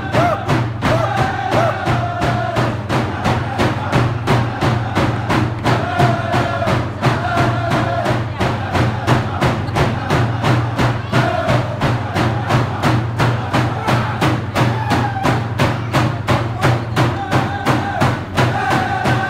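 Dene hand drums beaten in a steady even beat, about three strokes a second, with voices singing a drum-dance song over them.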